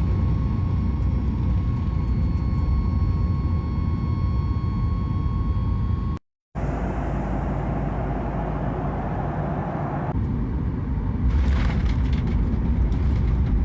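Airliner cabin noise: the steady low rumble and rush of jet engines and airflow, with a faint steady whine in the first part. It cuts out briefly about six seconds in, and turns more hissy for the last couple of seconds.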